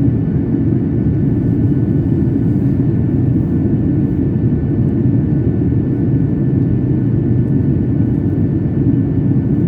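Airliner cabin noise during the landing approach: a steady low rumble of the engines and airflow heard from inside the cabin, with a faint steady whine above it.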